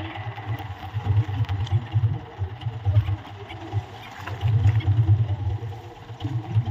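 Small fishing boat's engine idling with a low, uneven throb, over a steady hiss of water and wind.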